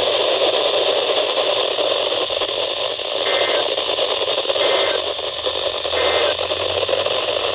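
Static from a weather radio receiver: a steady hiss of noise through the radio's speaker, with no voice. Three faint short tones come through it about a second and a half apart.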